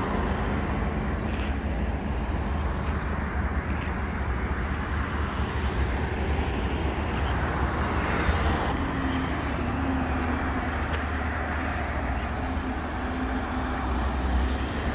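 Steady vehicle rumble, with a faint low hum joining in about halfway through.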